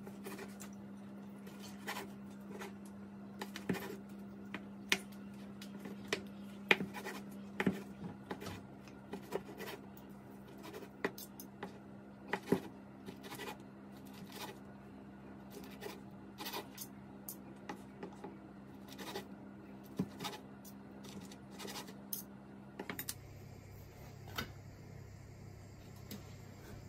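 A kitchen knife slicing cooked chicken breast on a wooden chopping board, with irregular sharp taps and scrapes as the blade meets the board and the fork. A steady low hum runs underneath until it stops suddenly near the end.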